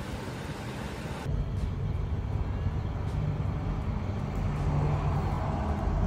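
A vehicle's engine running with the hood open, cut off about a second in by a low rumble of engine and road noise heard from inside the cab of a moving vehicle.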